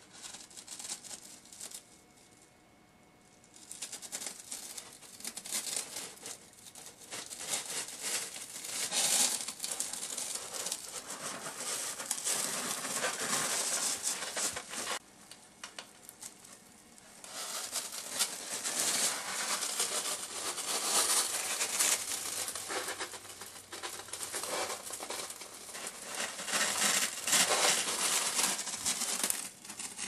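Cat scratching and digging in silica crystal cat litter, the crystals crunching and rustling in two long spells of about ten seconds each.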